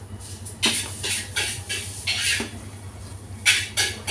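Metal ladle stirring mung bean porridge in an aluminium pot, scraping and knocking against the pot about six times at uneven intervals.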